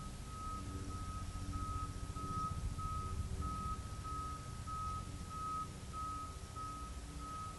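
An electronic beeper sounding one high, steady-pitched beep over and over at an even pace, a little under two beeps a second, over a low rumble.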